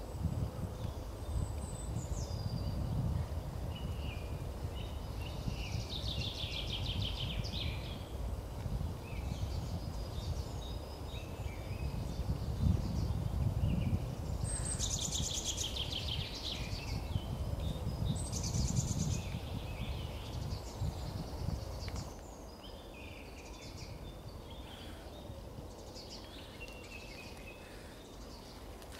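Small songbirds singing short, rapid trilled phrases every few seconds, over a low background rumble that drops away about three-quarters of the way through.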